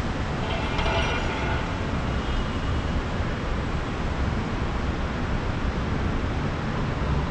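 Steady city traffic din rising from the streets far below, mostly a low rumble. A brief higher, pitched sound stands out above it about a second in.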